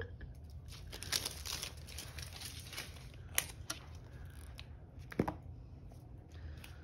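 Tape strips being peeled and torn off a large plastic toy egg, with crinkling and a few sharp clicks of hands handling the hollow plastic shell.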